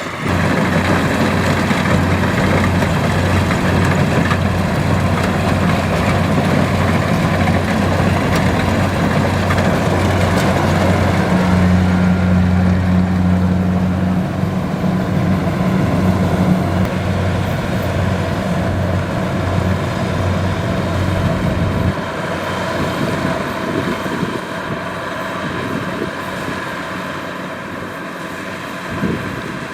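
Kubota combine harvester running steadily with a low engine hum and a haze of machinery noise. About three quarters of the way through the low hum drops away and the sound gets quieter.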